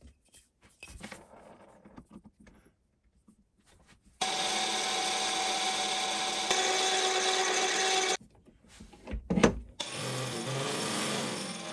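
Faint handling clicks, then a power tool running steadily for about four seconds, starting and stopping abruptly. A sharp knock follows, and the tool runs again near the end.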